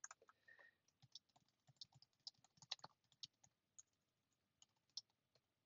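Faint typing on a computer keyboard: quick, irregular keystrokes, most of them in the first three seconds, then a few scattered clicks.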